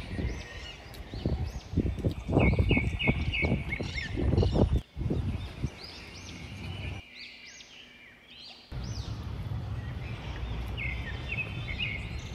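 Birds calling outdoors: many short, repeated rising-and-falling chirps, with wind buffeting the microphone through the first half. After about nine seconds a steady low rumble of outdoor background noise sits under the chirps.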